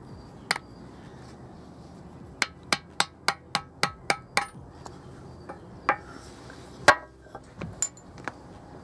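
Hammer striking a small metal punch to drive the shaft out of an angle grinder's driven bevel gear. There is a single blow, then a quick run of about eight ringing metal taps at roughly four a second, then a few spaced blows, the hardest about two-thirds of the way through, and some lighter taps near the end.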